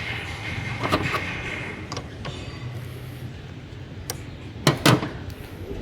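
Scattered sharp clicks and knocks of hand tools and metal parts being handled while a wire is refitted under the hood, the loudest a close pair near the end, over faint background noise.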